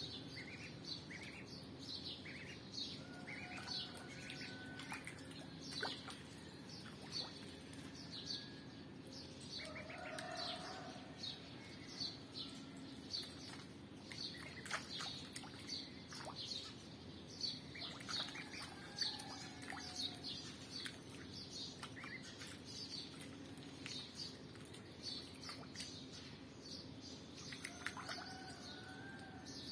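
Birds chirping: a continuous run of short, high, falling peeps, several a second, with a few lower whistled notes now and then, over a low steady hum.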